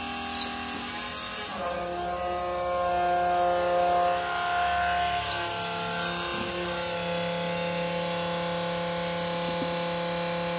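12-volt fuel transfer pump running with a steady whine while diesel is dispensed through the nozzle into a tractor's fuel tank. A short click about half a second in.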